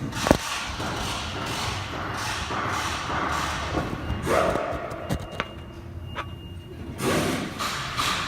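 A sharp knock about a third of a second in, then several seconds of scraping and rustling handling noise. There are two light clicks a little past the middle and another burst of rustling near the end.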